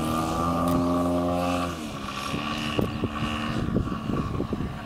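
Engine of a CARF MX2 radio-controlled aerobatic model plane running at high throttle on its takeoff run, its pitch rising slightly. About two seconds in, the note drops lower and quieter and holds steady, with scattered short crackles.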